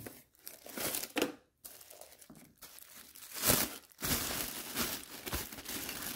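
Packaging crinkling and rustling as it is handled, in short irregular bursts and then a denser, continuous rustle from about four seconds in.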